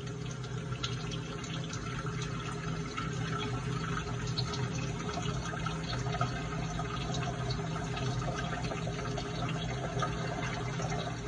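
Kitchen tap water running: a steady splashing hiss over a low hum, with small clicks and rustles of gloved hands working a flour tortilla.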